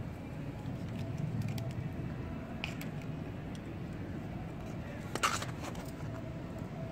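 Light scrapes and knocks of a metal garden trowel working loose soil, with one sharper knock about five seconds in, over a steady low background rumble.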